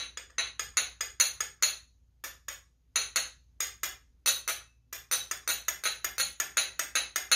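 Pairs of brass finger cymbals (zills) played with the tick stroke: the middle-finger cymbal tapping lightly onto the thumb cymbal. The result is quick strikes in rhythmic groups with short pauses, each strike dying away quickly.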